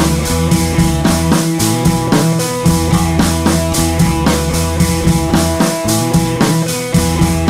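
Rock music with a steady, driving drum beat.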